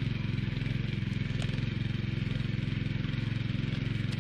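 Engine of a Búfalo two-wheel walking tractor (motocultivador) running steadily while tilling ground, a constant low throb with no change in speed.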